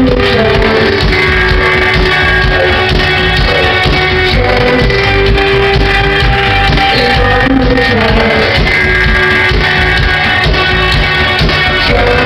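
Rock band playing live, with singing over guitar and drums, loud and steady.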